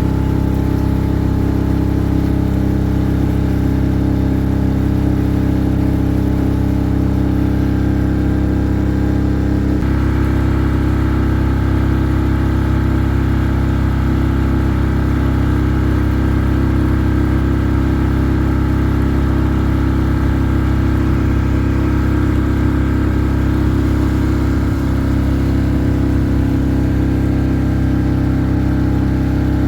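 An engine running steadily at an even speed, its pitch shifting slightly about ten seconds in.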